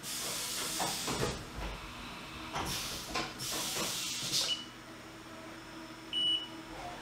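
Bursts of compressed-air hiss from a Haas CNC mill's air blast during an automatic tool-height measuring cycle, with two short high beeps.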